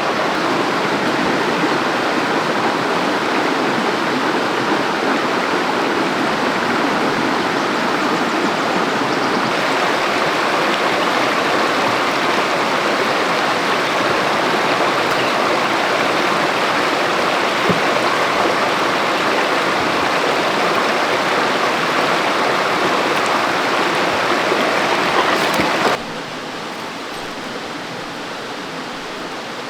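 A loud, steady rushing noise like running water, which drops abruptly to a lower level about 26 seconds in.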